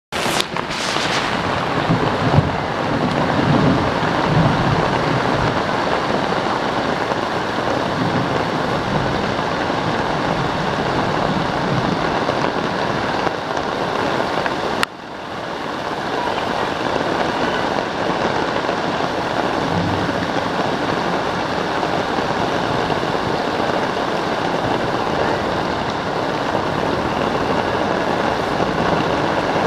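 Heavy rain falling steadily, a dense even hiss; about halfway through it breaks off with a click and comes straight back.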